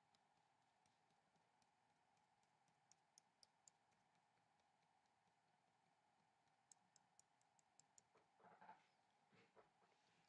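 Near silence, with two quick runs of faint, high clicks, one about 3 seconds in and another about 7 seconds in, and faint soft rustling near the end.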